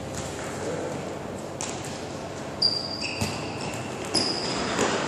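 Futsal ball being kicked on an indoor wooden court, giving sharp knocks and a thud about three seconds in. Short high squeaks, like shoes on the floor, come about halfway through and again near the end.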